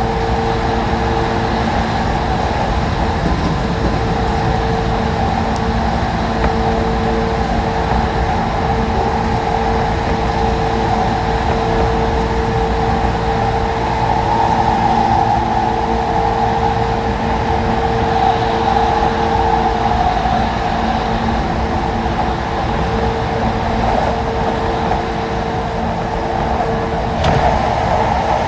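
JR 185 series electric train running: a steady rumble with a constant hum. A faint, very high whine comes in about two-thirds of the way through.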